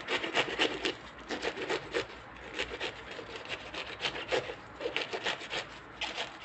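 Kitchen knife cutting through the tough, fibrous outer leaves and stem of a globe artichoke: a quick run of short, uneven scraping cuts, several a second.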